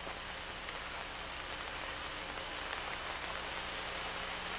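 Steady hiss with a low hum and a few faint crackles: the noise floor of an old film soundtrack.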